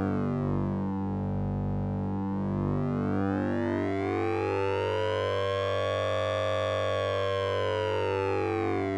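Electronic synthesizer effect: a buzzy, siren-like tone over a steady low drone. Its upper overtones sweep down, rise slowly to a peak past the middle and fall again, while short stepped notes shift underneath.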